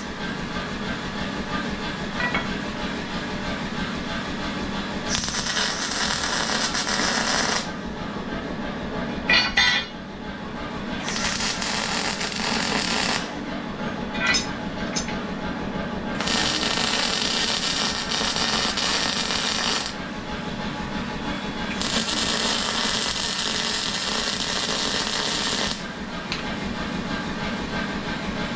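Welding in four crackling bursts of a few seconds each, joining a spigot onto a steel hot-cutting tool, over a steady workshop hum, with a few sharp metal clicks between the bursts.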